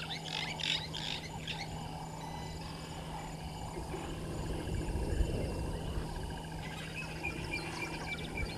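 Bush ambience at a waterhole: a chorus of frogs and insects, with rapid high chirping calls in the first second and a short run of high tones near the end, over a steady low hum.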